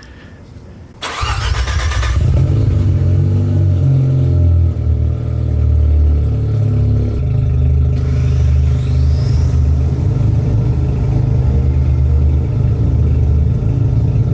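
Mazda RX-7 FD's 13B twin-turbo rotary engine cranking briefly and firing about a second in, then running loud with a low, uneven note that rises and falls.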